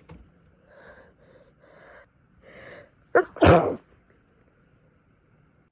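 A woman with a head cold sneezing: a few quieter, shaky breaths build up, then a sharp intake and one loud sneeze about three and a half seconds in.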